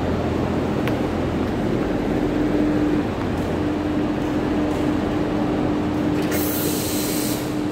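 Large square industrial ventilation fans, about 1.2 m across and set into the factory wall, running: a steady rushing drone with a constant hum. A short hiss sounds about six seconds in.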